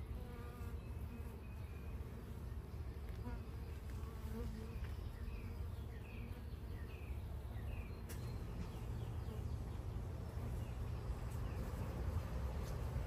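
Honeybees buzzing around an opened hive, the hum of single bees swelling and fading as they fly close.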